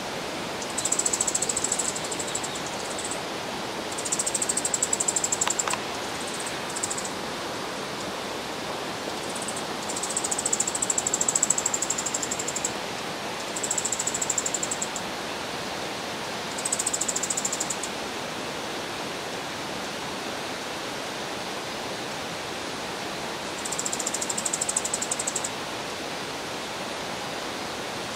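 A small songbird, which the uploader takes for a leaf warbler, gives bouts of very high, rapid trilling chatter, each lasting one to two and a half seconds, about six times with gaps between. The uploader reads them as alarm or warning calls, perhaps near a nest. A steady rushing noise runs underneath.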